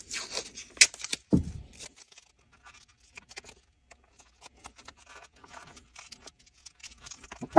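Blue painter's tape being pulled off the roll and pressed and crinkled by hand around a shotgun receiver: scratchy rustling bursts in the first couple of seconds with a thump, then quieter crinkling, and a sharp snap near the end.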